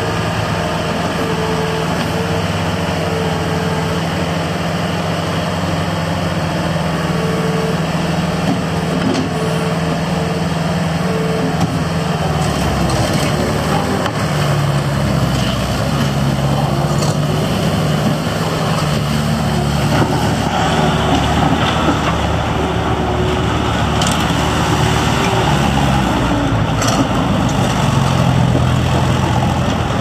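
Bobcat T190 compact track loader's diesel engine running steadily as the machine works its lift arms and then drives on its tracks. The engine note shifts about twelve seconds in and grows louder from about twenty seconds, with a few sharp clacks near the end.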